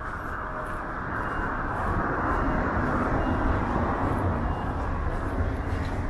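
Heavy storm-swell (ressaca) surf breaking on the beach: a rushing wash with a deep rumble that grows louder about two seconds in and stays loud.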